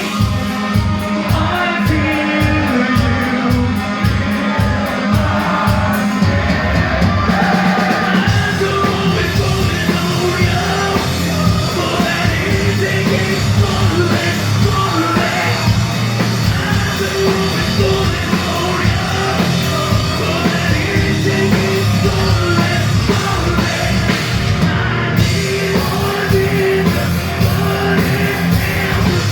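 Live metal band playing loud, with distorted guitars, bass, drums and sung and yelled vocals. For about the first eight seconds the low end moves in a fast stop-start chugging rhythm, then the full band plays on continuously.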